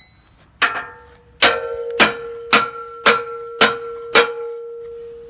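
Sledgehammer striking a steel bolt to drive it through a steel basketball-hoop pole: seven metallic clangs about half a second apart, the first lighter. The pole rings on after each blow and fades out after the last.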